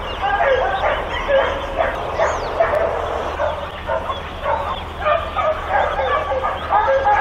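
Several dogs at a boarding kennel barking continuously, their barks overlapping at different pitches with no break.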